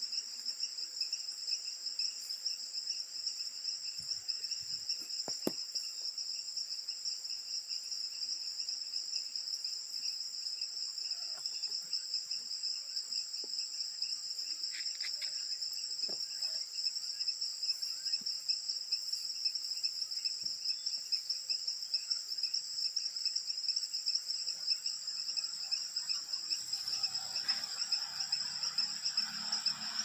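Steady high-pitched chorus of insects trilling, with a rapid pulsing.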